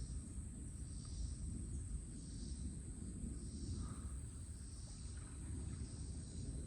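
Wind buffeting the microphone in a low, uneven rumble, with insects calling outdoors in a soft high pulse about once a second over a thin steady high tone.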